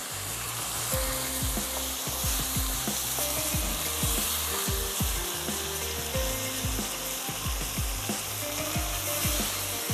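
Chicken keema with potatoes and tomato masala sizzling in a hot frying pan while it is stirred and turned with a spatula, which scrapes and knocks against the pan many times. This is the bhuna stage, frying the spices and tomatoes until the raw taste is cooked out.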